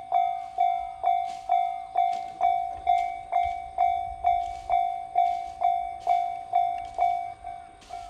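Japanese level-crossing warning bell ringing, a steady electronic ding repeating a little over twice a second while the barriers come down. About seven seconds in it turns much quieter as the barriers reach the down position.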